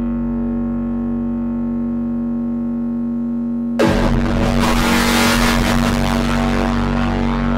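Live electronic noise music: a steady synthesizer drone with a low hum and many fixed tones. About four seconds in, a sudden loud burst of harsh noise cuts in for roughly three seconds, then the drone carries on alone.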